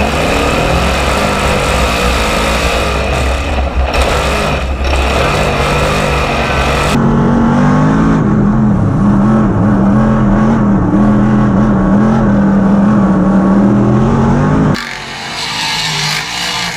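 A dirt modified race car's V8 engine running hard at a steady pitch, heard from the car's onboard camera. Near the end it cuts suddenly to quieter, more distant engine sound of modifieds racing past.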